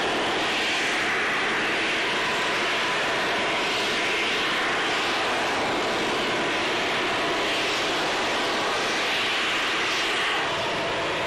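Super Heavy Booster 3 venting gas during a cryogenic test: a loud, steady rushing hiss that surges a little.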